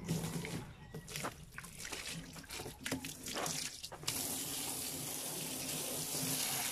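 Water splashing and sloshing unevenly, then from about four seconds in a steady stream of running water.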